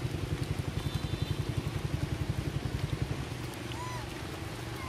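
A small engine runs with a low, rhythmic throb of about nine pulses a second and fades out about three seconds in. Rain hisses on wet ground and puddles throughout, with a brief faint chirp near the end.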